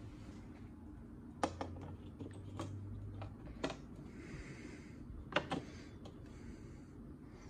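Plastic rear light surround on a Mini Cooper S being pressed onto the tail light by hand: a handful of sharp clicks and taps as its retaining clips snap into place.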